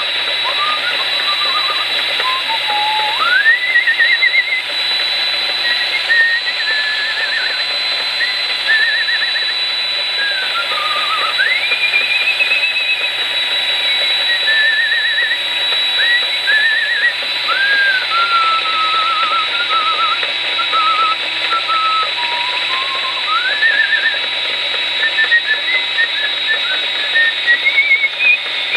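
A generic Chicago Electric rotary tool running at high speed with a steady high whine while it bores out a hole in a rubber stopper turning on a lathe. Over it, someone whistles a wandering, warbling tune.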